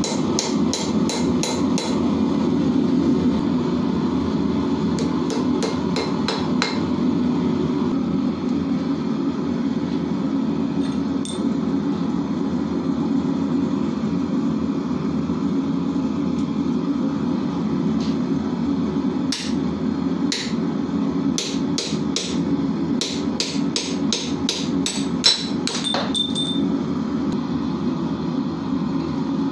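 Hand hammer striking red-hot strip iron on an anvil, forging out hinge rings: a quick run of blows at first, a few scattered strikes, then a longer run of rapid blows near the end. A steady low rushing noise runs underneath.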